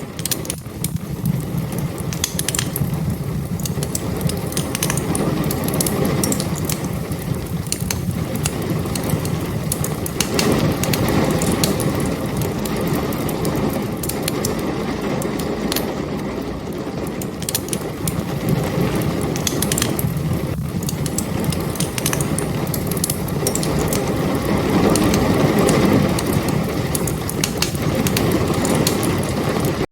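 Wood fire crackling steadily, with frequent sharp pops and snaps over a low, even rumble of burning.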